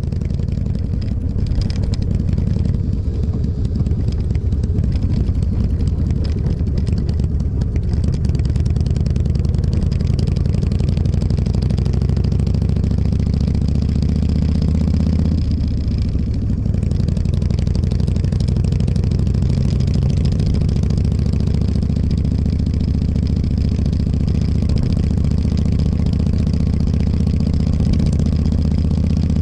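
Motorcycle engine running under way; its pitch rises a little before halfway, dips briefly, then holds steady.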